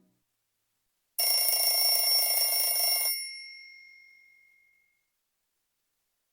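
A Nokia 2730 classic ringtone in the style of an old telephone bell. About a second in it rings for about two seconds, a bright bell-like rattle, then dies away.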